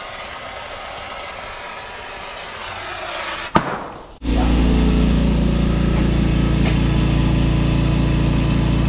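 Air compressor running steadily, pumping air into new copper water lines for a pressure test; it cuts in suddenly about four seconds in. Before it, a quieter steady hiss ends with a sharp click.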